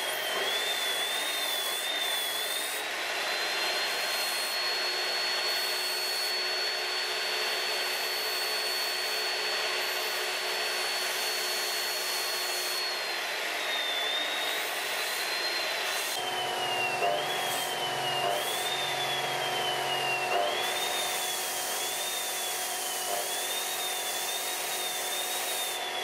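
Abrasive cut-off saw disc grinding a small metal piece held by hand, a high whine over a steady grinding hiss. In the second half the whine's pitch dips and recovers about once a second as the piece is pressed against the wheel.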